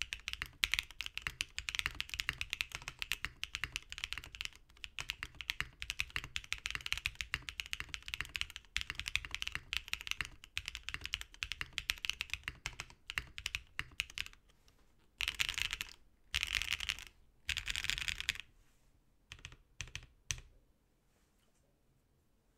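Fast typing on a FreeBird TKL aluminium keyboard built with lubed and filmed Durock POM linear switches, a POM plate, an O-ring mount and PBT keycaps: a dense run of keystrokes. After about fifteen seconds come three short bursts of rapid key presses and a few single presses, and the typing stops shortly before the end.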